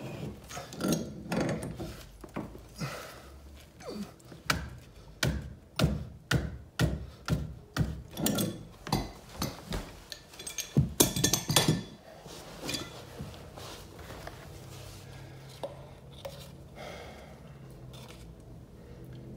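Pipe wrench working a brass steam radiator valve fitting: a run of sharp clicks and knocks, about two a second, as the wrench is swung and re-gripped, ending in a few louder knocks about twelve seconds in. After that there is only faint handling noise.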